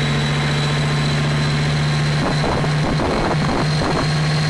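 A 56-cylinder Zvezda M520 radial diesel engine running with a steady low hum and a thin high whine above it. About halfway through, the hum turns choppy and uneven.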